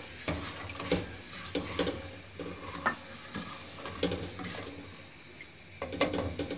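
A ladle stirring milk in a metal cooking pot, with repeated short scrapes and taps against the pot's sides and bottom.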